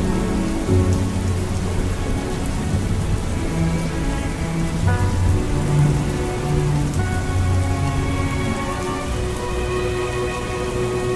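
Steady rain with thunder rumbling low, mixed under slow, soft music of long held notes.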